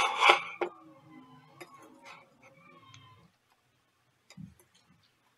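A metal ladle clattering and scraping against a metal mixing bowl and muffin pan as batter is scooped into the cups. A loud clatter right at the start, then scattered light clicks and a soft knock.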